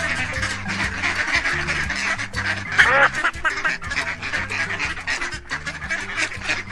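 Ducks quacking and chattering in a dense run of short calls, with one louder call about three seconds in, over background music with steady low notes.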